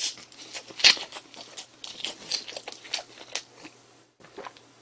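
Close-up biting and chewing of a McDonald's Double Bulgogi Burger: a string of short, irregular clicks and crackles, the strongest about a second in.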